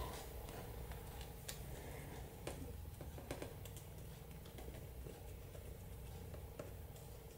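Faint, irregular light clicks and taps from a clear plastic culture cup being handled and tipped as isopods and moss are shaken out, over a low steady hum.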